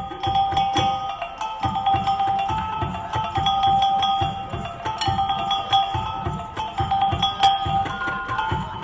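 Gamelan ensemble playing: metal mallet instruments ringing sustained, shifting tones over a steady, repetitive low drum beat.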